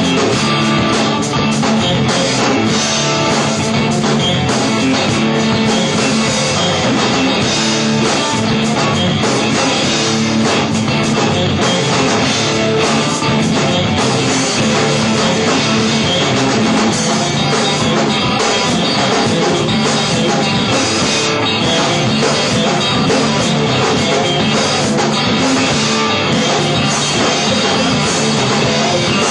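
A stoner rock trio playing live: electric guitar, bass guitar and drum kit playing steadily and loud.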